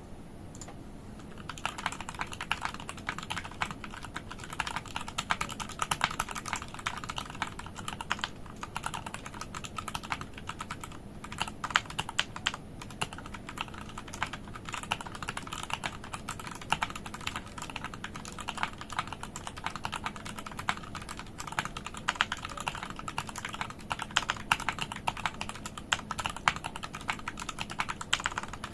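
Typing on an RK71 mechanical keyboard: a fast, uneven run of key clicks and clacks, starting about a second and a half in.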